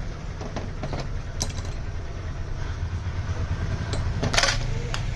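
Low, steady engine rumble with scattered clicks, and a short burst of hiss about four and a half seconds in.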